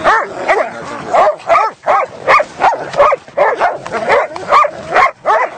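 A pack of dogs barking and yelping excitedly as they tussle together, in a quick run of short calls, about three a second, each rising and then falling in pitch.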